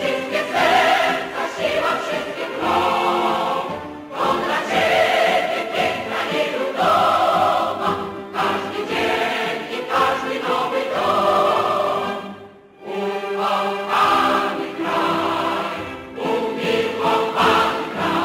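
A choir singing with musical backing, in long held phrases, with a short break about twelve seconds in.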